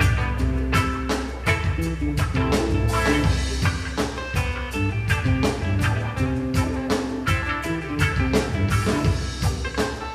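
Live band playing an instrumental passage without vocals: a drum kit keeping a steady beat under bass guitar and electric guitar.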